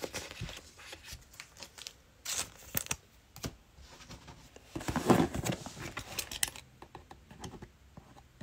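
Cardboard trading-card booster boxes and pack wrappers being handled: scattered taps, clicks and crinkling, with a louder stretch of rustling about five seconds in.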